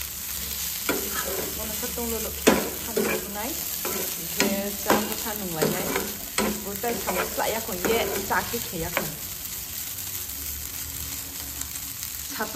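A metal spoon stirring and scraping food around a nonstick frying pan over a steady sizzle, about two scraping strokes a second, some with a short squeak. The stirring stops about three-quarters of the way through, leaving only the sizzle.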